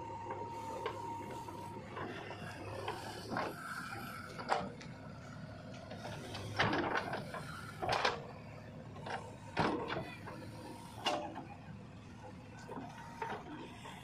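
JCB 3DX backhoe loader at work: its diesel engine runs steadily while the bucket scrapes into soil, with about half a dozen sharp metal clanks spread through the digging.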